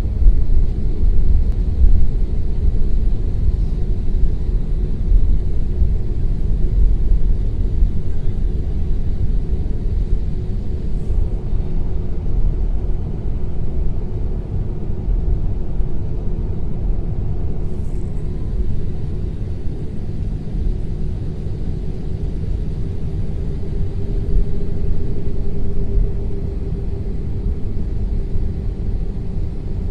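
Steady low rumble inside an airliner cabin while the plane is being de-iced on the ground, with a faint steady hum that rises slightly in pitch about three-quarters of the way through.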